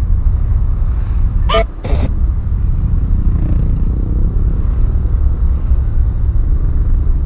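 Steady low rumble of wind buffeting the microphone and a motor scooter's engine while riding in slow traffic. Two short beeps come about a second and a half in.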